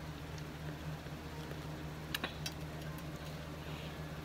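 Someone chewing a fresh strawberry, with a few sharp wet mouth clicks about two seconds in, over a steady low hum.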